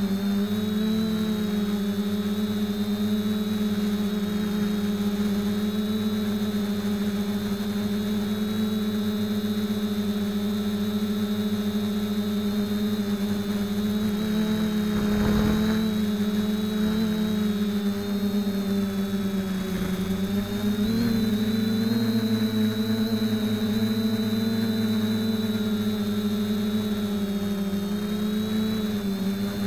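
FPV quadcopter's electric motors and propellers whining steadily, recorded by the camera mounted on the craft, the pitch wavering slightly with throttle. A brief rush of noise comes about halfway through, and the pitch steps up a little about two-thirds of the way through.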